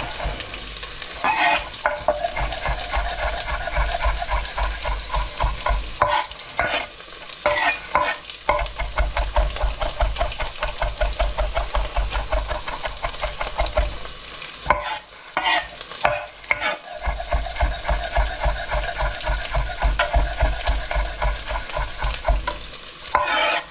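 Kitchen knife rapidly chopping garlic cloves on a cutting board, a fast, even run of taps in three bursts with short pauses, over smoked bacon sizzling in a frying pan.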